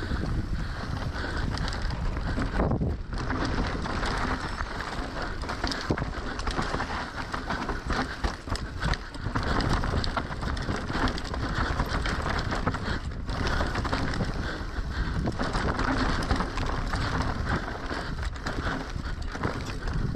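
Mountain bike riding fast down a dirt trail: steady tyre noise over dirt and stones, with many rattles and knocks from the bike, and wind rushing on the microphone.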